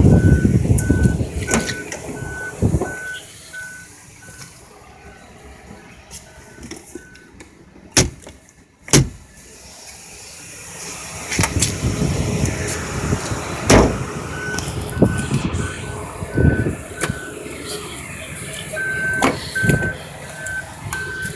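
Electronic warning beeper sounding a single-pitch beep a little under twice a second. It stops for several seconds partway through, then returns and grows louder near the end. Knocks and rubbing from handling are heard under it, with two sharp knocks around the middle.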